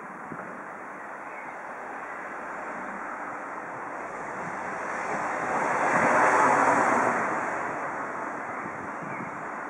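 A vehicle passing by: a rushing noise that swells to a peak about six seconds in, then fades away.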